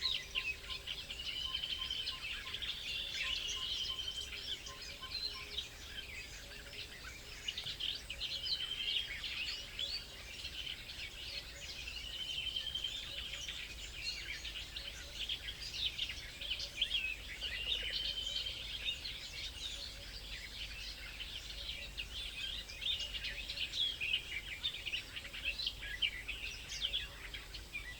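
Many small songbirds chirping and calling over one another, with one bird repeating a short whistled song phrase every four or five seconds, over a steady low background hum.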